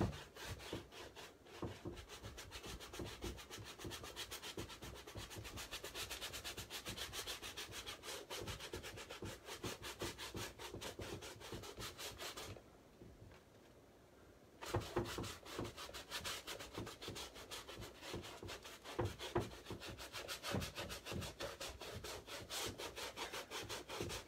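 Paintbrush scrubbing paint onto a stretched canvas in quick back-and-forth strokes, stopping for about two seconds around the middle before starting again.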